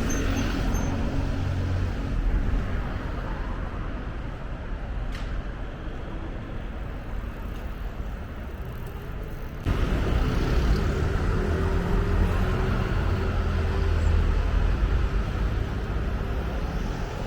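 Steady rumble of road vehicles with a low engine hum, stepping up suddenly in loudness about ten seconds in.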